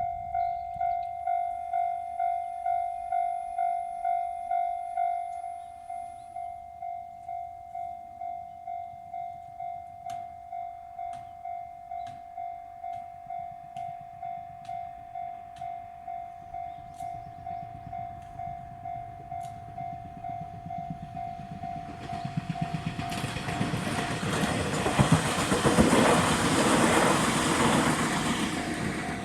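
Japanese level-crossing alarm, an electronic bell of the Tohoku-type tone, beeping steadily about twice a second; it drops in volume about five seconds in. From about twenty seconds in, a train approaches and passes over the crossing, loudest near the end, while the alarm keeps beeping.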